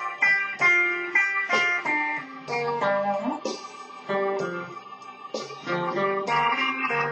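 Silvertone SS10/SS11 electric guitar played by hand, picking a melody of single notes with a few chords, one note sliding up about halfway through.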